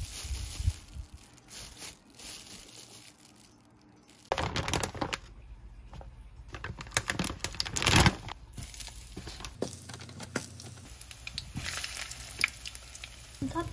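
A thin plastic bag crinkles and rustles as a hand sifts through small plastic toy pieces. About four seconds in, this gives way to kitchen sounds at a frying pan: a steady low hum with scattered clatters and rustles.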